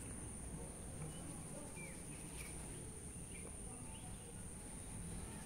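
Faint outdoor ambience: a steady high-pitched insect drone, with a few short bird chirps about two to three seconds in.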